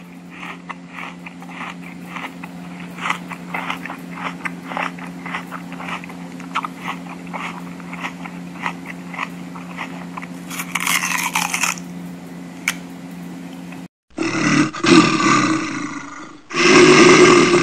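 A rabbit crunching and chewing fresh grass in quick, crisp bites over a steady low hum. About fourteen seconds in, the sound cuts to a louder, rough roaring sound in two long bursts of about two seconds each.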